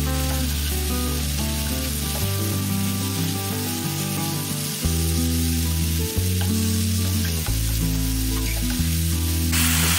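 Spice paste sizzling as it fries in oil in a pan, stirred and scraped with a wooden spatula; the sizzle gets louder near the end. Low background music plays underneath.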